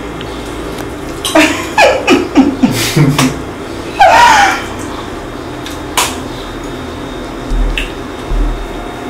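A woman making a quick run of short throat noises while eating, then one longer vocal cry with a rise and fall about four seconds in. A single sharp click follows near six seconds.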